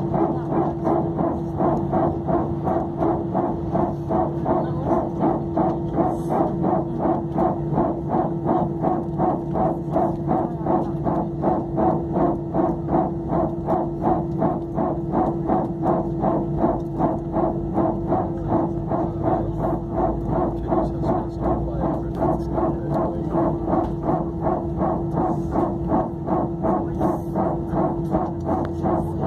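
Sustained musical drone sample: a held steady note with lower tones beneath it, pulsing in an even, quick rhythm, an aeroplane-like drone.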